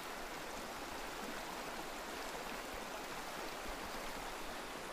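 Shallow burn flowing steadily over its stony bed.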